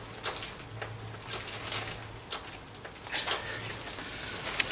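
Scattered light clicks and taps from hands handling the plastic bleed bottle and tube at the motorcycle's rear brake caliper, over a low hum that comes and goes.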